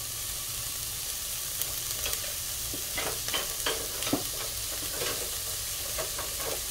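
Chopped onions sizzling steadily in a dry pot as their water cooks off, with a spoon scraping and knocking against the pot as they are stirred, the knocks coming in a run in the second half.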